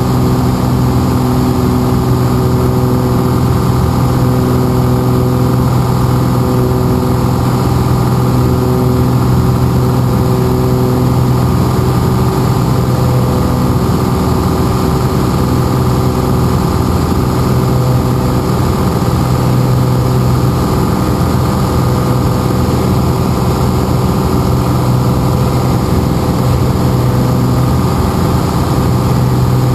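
Piper Lance's six-cylinder piston engine and propeller droning steadily at a constant pitch, heard from inside the cabin in flight.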